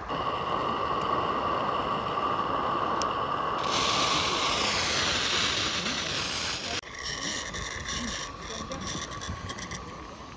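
32mm live steam locomotive hissing steam. A louder, higher hiss comes in about a third of the way through and cuts off suddenly a few seconds later, followed by light clicking.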